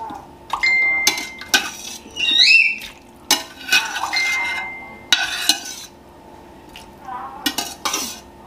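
A metal utensil stirring chicken feet and peanuts in a pot, knocking and scraping against the pot with a string of sharp clanks, two brief ringing tones and a short squeak.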